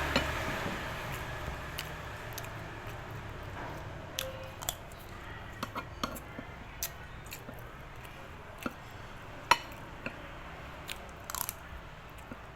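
Someone eating: irregular small crunches and clicks of biting and chewing food, over a low hum that fades away.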